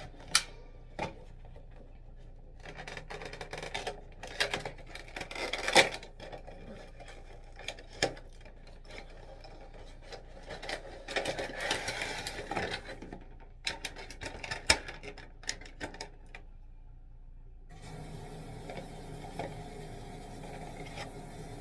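Hands unpacking and handling an extendable tripod and its packaging: stretches of rubbing and scraping, broken by several sharp clicks and snaps. The handling stops about 18 seconds in, leaving a faint steady hum.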